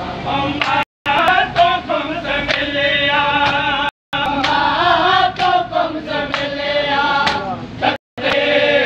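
A noha mourning lament chanted by a group of men, with sharp hand slaps on bare chests in matam beating through it. The sound cuts out briefly three times.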